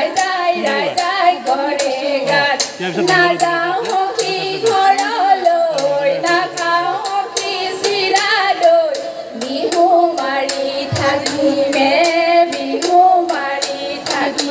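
Women singing a Jeng Bihu folk song into stage microphones, with sharp rhythmic claps keeping time, about three a second.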